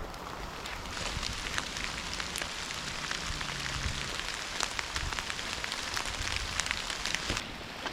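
Steady rain falling through woodland, with many sharp individual drop hits ticking over the hiss. It gets louder about a second in.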